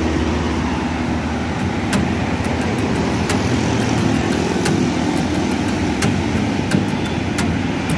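Steady road noise of passing cars and motorbikes with a low rumble, heard from a moving bicycle, and a few sharp clicks scattered through it.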